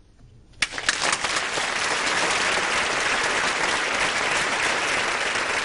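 Theatre audience applauding at the end of a solo piano piece, breaking out suddenly about half a second in and then going on steadily.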